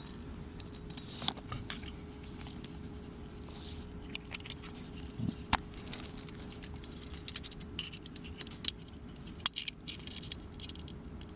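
Handling noise of a folding knife and a measuring tool: scattered small clicks, light metallic rattles and brief scrapes, over a faint steady hum.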